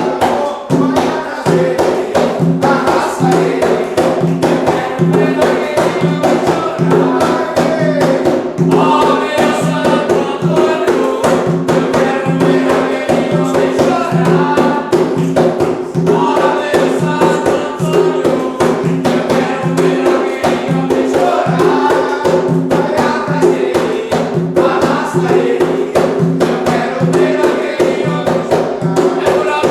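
Religious ritual chant: a group singing over a steady, dense beat of hand percussion.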